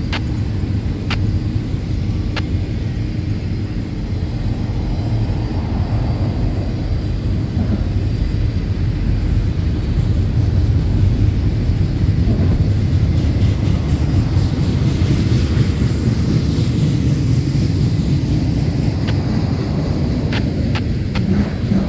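Freight train cars rolling past at close range: a steady low rumble of steel wheels on rail, growing a little louder about halfway through, with a few faint sharp clicks near the start and near the end.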